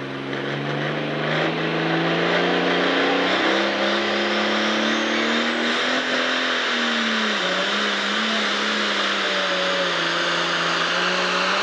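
Turbocharged diesel engine of a pro stock pulling tractor under full load hauling the sled, its pitch climbing over the first several seconds, dipping briefly about seven seconds in, then holding steady. A high whine rises in pitch about four to six seconds in, over heavy exhaust hiss.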